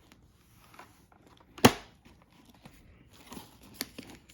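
Handling noise from a new full-face motorcycle helmet: low rustling and crinkling, one sharp loud click about a second and a half in, and a few smaller clicks near the end.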